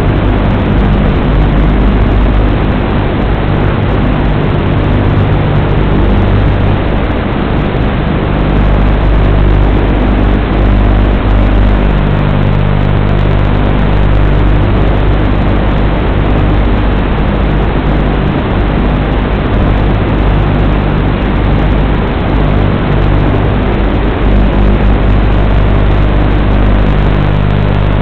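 Loud, steady droning hum with hiss on the mini quadcopter's analog FPV video-link audio, as recorded by the goggles. The low hum holds its pitch, and none of it goes above about 4 kHz.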